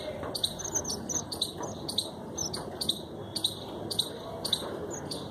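Red munias (red avadavats) in an aviary giving short, high, thin chirps, many in quick succession, over a steady low background murmur.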